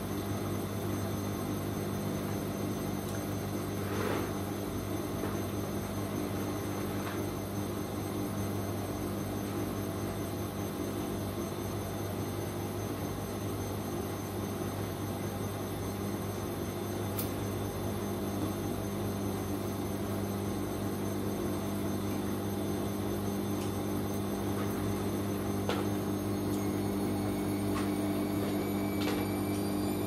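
Bosch front-loading washing machine running on a 40 °C cotton wash, a steady hum with a thin high whine and a few faint clicks. The whine rises in pitch near the end.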